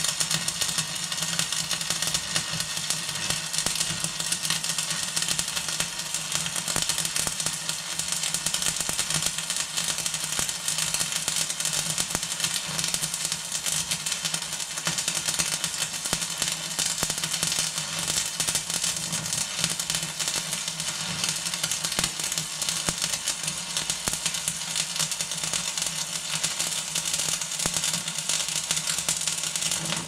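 MMA (stick) arc welding at about 110 amps, the arc crackling and sizzling steadily as weld is laid on a worn steel shaft to build it up for machining back to fit its bush. A steady low hum runs underneath.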